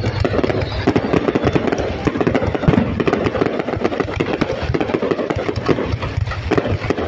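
Fireworks going off in quick succession: a dense, unbroken crackle of bursts.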